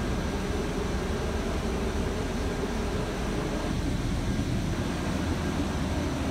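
Steady machinery noise: a low rumble with an even hiss above it, unchanging throughout.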